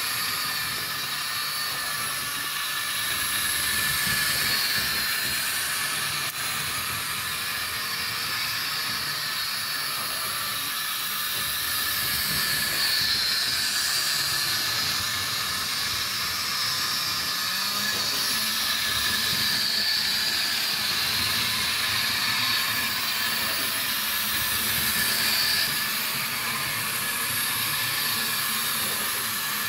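Model Power D&RG Bumble Bee HO-scale electric model train running on its track: a steady whirring hiss from the small motor and wheels on the rails, swelling and fading slowly.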